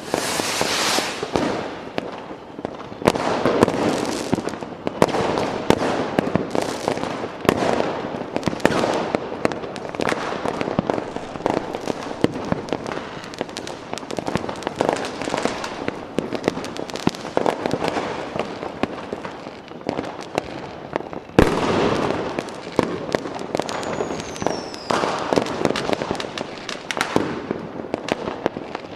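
Fireworks going off in a dense, continuous barrage of bangs and crackling. About three-quarters of the way through comes a sharper, louder bang, followed shortly by a brief falling whistle.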